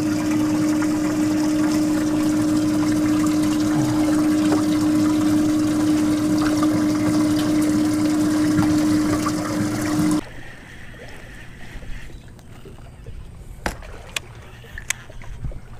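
Bass boat livewell pump running, with a steady motor hum over water splashing into the livewell; it cuts off suddenly about ten seconds in.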